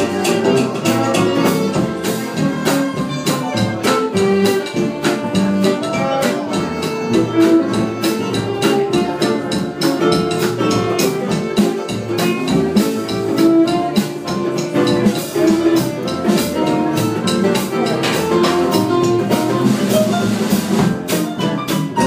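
Small jazz band playing live: violin lead over double bass, hollow-body electric guitar, piano and drum kit.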